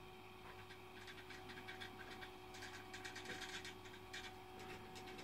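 Faint steady electrical hum with light, scattered ticks, with the control station's electronics running.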